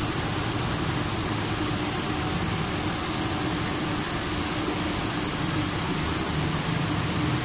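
Steady whooshing background noise with a faint low hum and a faint steady tone.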